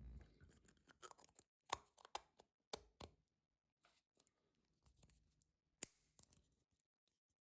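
Faint handling noises: a soft thump, then a scattered series of short, sharp clicks and taps, with the loudest around the middle.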